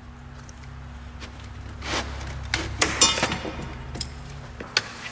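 Hose clamp pliers working a spring hose clamp on a rubber radiator hose: scattered metal clicks and rubbery scrapes, with a denser crackling scrape about three seconds in and a sharp click near the end.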